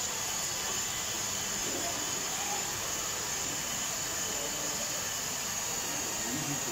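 Steady jet-engine hiss and whine from the model airport's loudspeaker sound effects as a model airliner rolls down the runway, with faint crowd murmur underneath.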